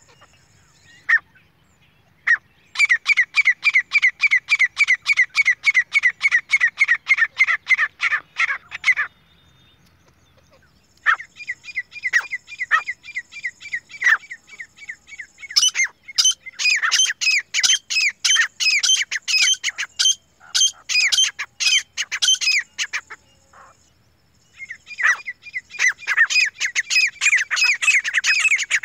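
Grey francolins calling as a pair: long bouts of fast, shrill notes repeated several times a second. The bouts break off twice for a second or two.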